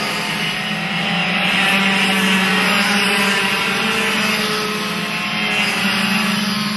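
Several racing karts' two-stroke engines running at high revs together, their overlapping pitches rising and falling as the karts pass through the corners.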